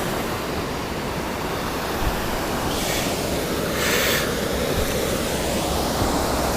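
Waterfall rushing steadily, a constant even roar of falling water, with two short brighter hissing surges about three and four seconds in.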